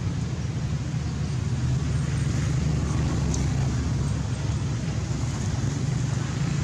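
A steady low rumble with no distinct event standing out.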